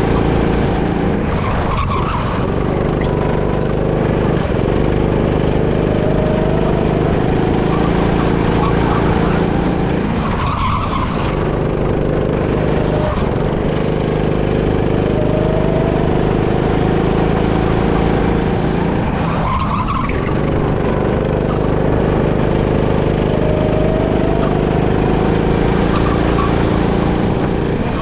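Go-kart engine heard from onboard, lapping a track: the revs drop into a corner with a brief tyre squeal about every nine seconds (four times), then climb again on the straights.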